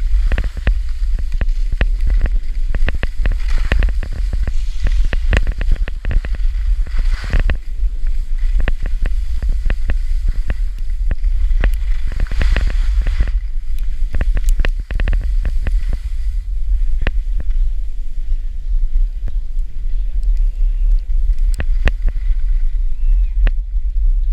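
Skis hissing and scraping over packed snow, swelling in several surges, over a steady low wind rumble on the microphone, with many small sharp clicks throughout.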